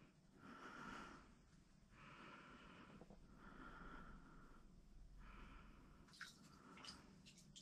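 Faint, slow, even breathing close to the microphone, one soft breath about every second and a half, with a few light clicks near the end.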